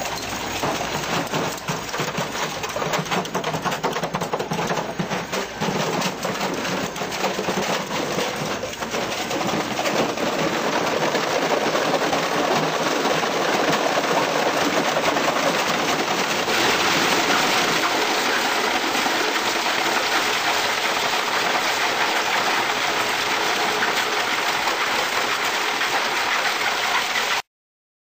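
Komar auger shredder crunching and breaking up rigid plastic crates and panels: a dense, continuous crackling and cracking of plastic over the running machine. The crunching turns harsher and brighter a little past halfway and cuts off suddenly near the end.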